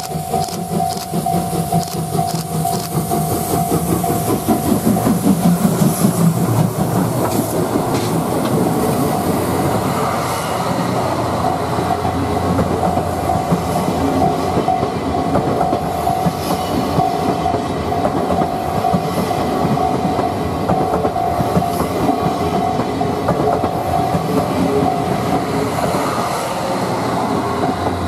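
C57 steam locomotive passing close by, working hard with sharp exhaust chuffs, its low rumble loudest a few seconds in; then the 12-series passenger coaches roll past with a rhythmic clickety-clack of wheels over rail joints. A level-crossing warning bell keeps up a steady tone throughout.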